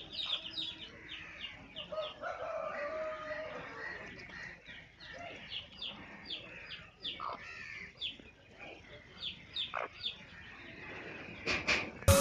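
Game rooster and hens clucking with short, quick calls while they peck at grain, with a longer, falling rooster call about two seconds in.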